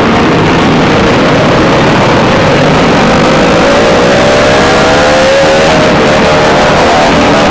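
Motorcycle engine noise, loud and distorted, with one engine revving up in a rising pitch about halfway through, then falling back.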